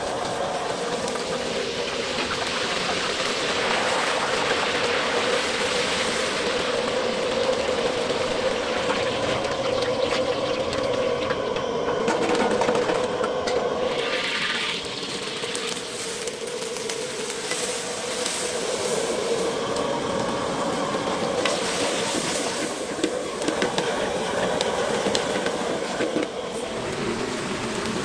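Wok cooking in a commercial kitchen: a steady roar with the hiss and sizzle of food frying in hot oil, and a brief louder hiss about halfway through.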